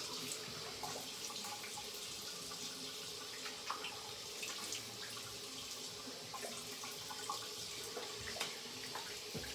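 Tap running into a sink with small intermittent splashes as shaving lather is rinsed off the face with running water.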